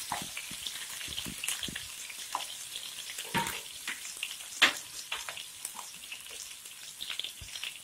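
Chopped garlic, diced onion and green chillies sizzling in hot oil in a non-stick pan: a steady frying hiss with scattered pops and crackles.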